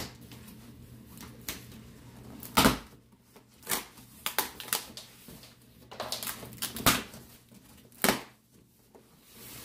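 A cardboard shipping box being torn open by hand and its brown packing paper pulled out: a string of sharp ripping and crinkling noises, the loudest about two and a half seconds in.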